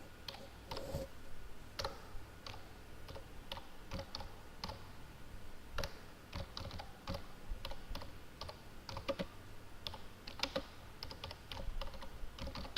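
Computer keyboard typing: irregular runs of key clicks, with short pauses between bursts.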